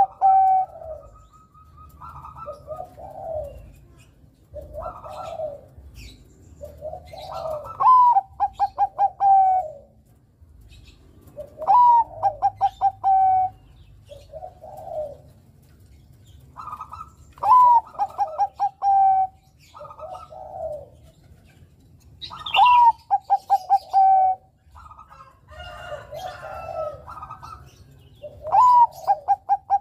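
Zebra dove (Bangkok-bred perkutut) singing: phrases that each open with a rising note, run into a quick stuttering string of notes and end in a long held coo, repeated every four to five seconds, with softer coos in between.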